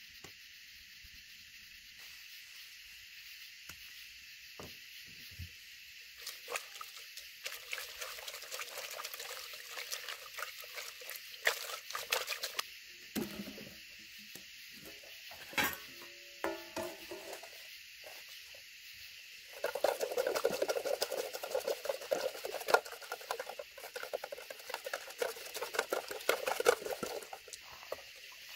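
Hands tearing and handling chanterelle mushrooms over a metal pot, with light rustling and small clicks. About two-thirds of the way in, water sloshes and splashes as the mushrooms are swished by hand in the water-filled pot to rinse them.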